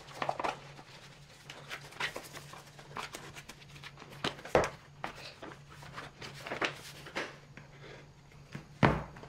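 Scattered taps, clicks and knocks of small objects being handled, with two louder knocks about four and a half seconds in and near the end, over a faint steady low hum.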